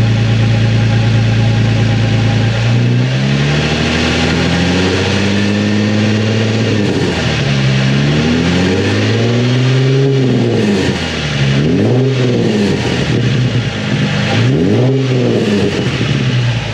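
Nissan 350Z's 3.5-litre V6 idling through a Tomei Expreme Ti titanium exhaust, then revved up and back down four times, the last two as short, sharp blips, before settling back to idle. The repaired exhaust runs without a leak. A slight burble as the revs fall is put down to back pressure on lift-off.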